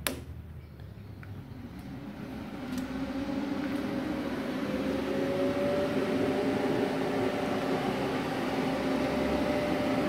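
Multipro TIG 315D G-TY inverter TIG welder switched on with a click of its rear power switch, then its cooling fan spinning up. The hum and whine rise in pitch and loudness for about five seconds, then run steadily and fairly strongly.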